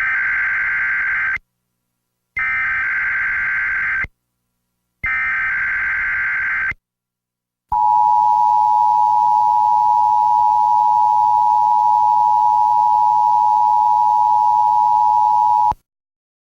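Emergency Alert System broadcast tones: three short bursts of SAME header data with brief gaps, then the two-tone EAS attention signal held steady for about eight seconds, cutting off abruptly. It is the lead-in to a tornado warning.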